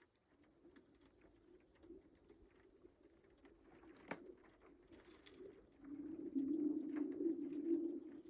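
Lake ice singing as it breaks up in spring: a low, steady hum that swells much louder about six seconds in. About four seconds in there is a sharp crack with a quick falling whistle, and small ticking cracks run throughout.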